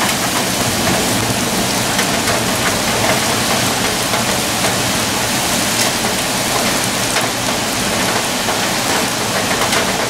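Heavy downpour with hail drumming on roofs: a dense, steady rushing hiss with many small sharp hits of hailstones scattered through it.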